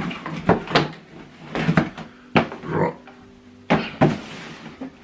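Packaging being handled as the speaker is unwrapped and lifted out of its box: a run of irregular knocks and rustles of cardboard and plastic.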